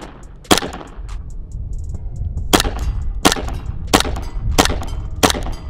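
Gas blowback Hi Capa airsoft pistol firing single shots: one sharp crack about half a second in, then after a pause five more at an even pace, about two-thirds of a second apart.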